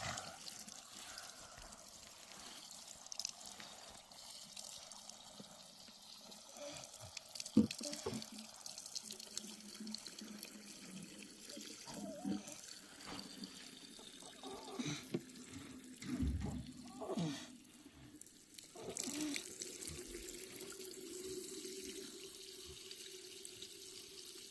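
Water running steadily, with scattered light knocks and clatter; a low steady hum joins about three-quarters of the way through.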